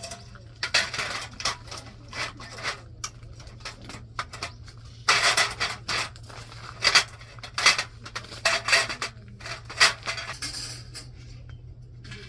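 Irregular scraping, rubbing and clinking of objects being handled, loudest about five seconds in, over a steady low hum.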